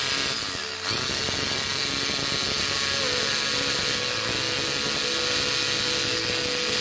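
Electric 2-20 rotary hammer drill running steadily on the bench, with its front tool-holder parts removed. The level dips briefly just under a second in, then the hammer runs on.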